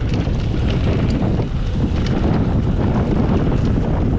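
Steady wind rushing over the microphone of a mountain bike rider's camera while riding a dirt trail at speed, with the tyres rolling over dirt and the bike rattling in scattered light clicks.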